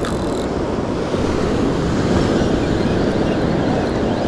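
Surf breaking and washing up a sandy beach, a steady rush with wind buffeting the microphone.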